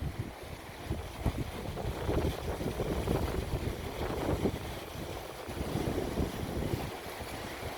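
Strong wind gusting and rumbling on the microphone, with sea waves washing in underneath.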